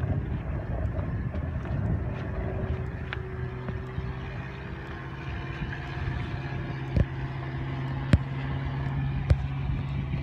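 A steady low engine hum, with three sharp clicks in the second half.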